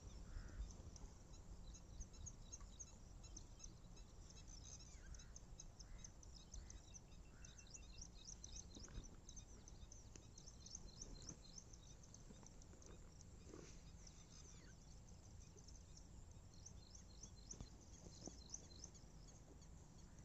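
Quiet outdoor ambience: faint, high-pitched chirping from small birds or insects comes in quick bunches, with a few lower call notes in the first half, over a low wind rumble.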